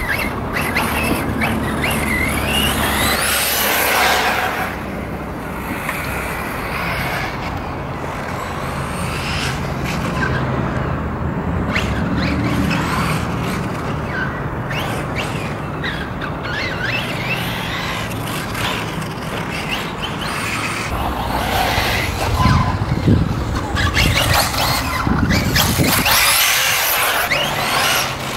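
Kyosho MP9e 1/8-scale electric buggy lapping a dirt track: its electric motor whine rises and falls as it accelerates and slows, over the noise of tyres on dirt.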